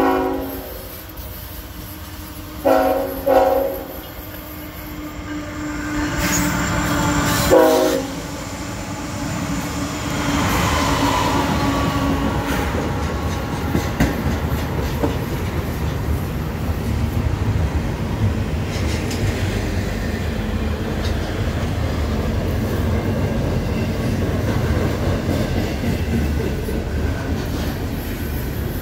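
Norfolk Southern ET44AC locomotive horn sounding several blasts as the train nears: a fading blast at the start, two short ones about three seconds in, then a longer, loudest one ending about eight seconds in. Then the locomotives pass and a double-stack intermodal train rolls by, with a steady rumble and clatter of wheels on the rails.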